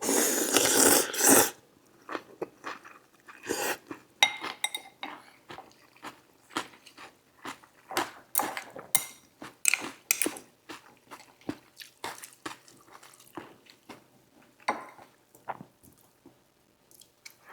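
Close-miked eating: a loud slurp lasting about a second and a half at the start, then crisp crunching and chewing of a mouthful of saimin noodles with raw jalapeno and fresh vegetables.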